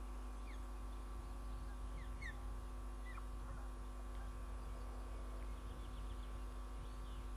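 Steady electrical hum with several constant tones, with a few brief, faint, high falling chirps from birds in the first half.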